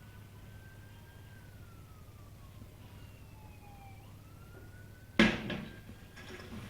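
A distant siren wailing faintly, its pitch slowly rising and falling, over a steady low hum. About five seconds in, a sudden loud thump cuts in.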